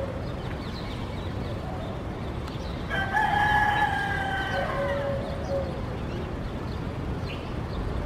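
A rooster crowing once, a long held call about three seconds in that drops slightly at its end, with faint short bird chirps around it over a steady low background hum.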